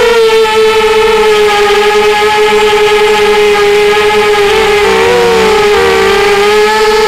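Strider Flex 250 racing quadcopter's brushless motors and propellers whining loudly, picked up close by its onboard camera. It is a steady high hum that, about five seconds in, splits into two wavering pitches as the motors change speed during a manoeuvre, then settles again.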